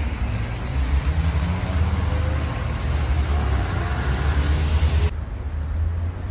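Street traffic noise: a motor vehicle running close by, with a low engine rumble and road noise. About five seconds in the noise cuts off suddenly, leaving a lower rumble.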